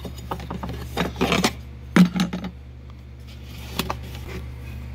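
Small clicks, taps and scrapes of a thumb screw and the intake power plate being handled inside a motorcycle's plastic airbox, coming in a few short clusters over a steady low hum.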